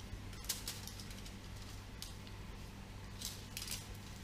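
A fork scraping and crinkling the aluminium foil on a baking tray as a baked cookie is pried loose, in a few short scratchy bursts: about half a second in, at about two seconds, and twice between three and four seconds. A steady low hum runs underneath.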